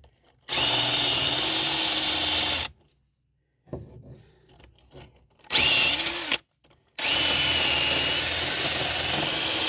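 Power drill spinning a wire wheel brush against a wheel hub, scrubbing it clean to seat a new wheel bearing. It runs in three stretches: about two seconds, a short burst, then about four seconds, each with a steady whine under the scrubbing.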